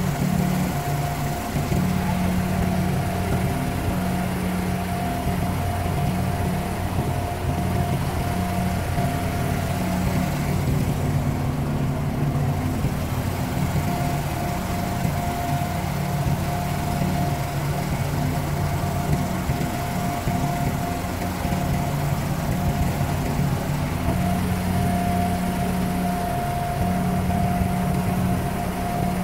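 Abra water taxi's inboard diesel engine running steadily under way, a low drone with a thin steady whine above it, over a hiss of water and wind.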